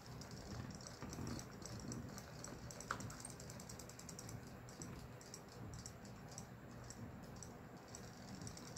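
Several battery-powered robotic fish toys swimming in a plastic tub of water, their tail-wagging motors making a faint, rapid clicking rattle. A single short ping sounds about three seconds in.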